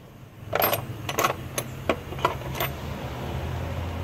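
Irregular sharp clicks and knocks of hard plastic engine-bay parts being handled and fitted back into place, about eight in the first three seconds, over a low steady hum.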